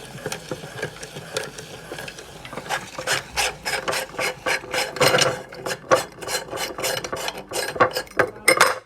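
Meat grinder crushing hot chillies: a steady mechanical run under a rapid, irregular rasping crackle that grows denser and louder from about three seconds in, then cuts off abruptly.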